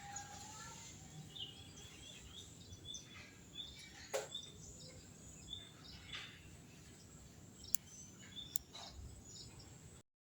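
Caged songbird giving short, faint chirps and a few quick downward calls over a low background hiss, with two sharp ticks near the end; the sound stops abruptly just before the end.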